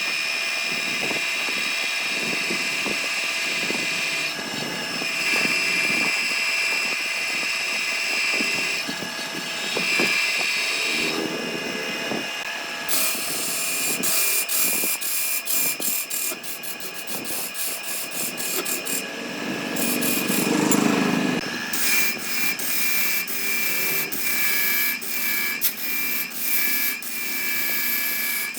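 A woodworking power tool working wood. It starts as a steady high whine, and from about halfway it turns into rapid, irregular scraping clicks.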